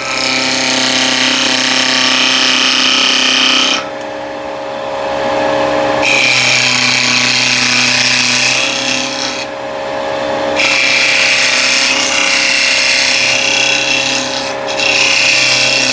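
Vicmarc VL300 wood lathe running with a steady hum while a turning tool cuts the spinning wood in four long passes, a hissing scrape that stops briefly between passes.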